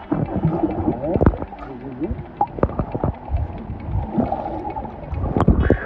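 Seawater heard through a phone microphone held under the surface: muffled sloshing and gurgling with scattered dull knocks, all high sounds cut away.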